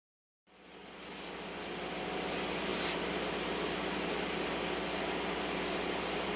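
CNC router spindle and dust collector running steadily while a 1/4-inch ball-nose bit cuts a pocket in mahogany: a steady hum under a noisy rush. It starts abruptly about half a second in and builds up over a second or so before holding level.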